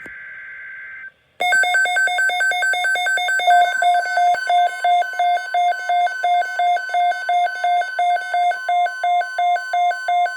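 Emergency Alert System alert: a short screech of digital header data ends about a second in, then a loud electronic attention tone pulses about three times a second, alternating between two pitches, with a steady single tone joining it a couple of seconds later.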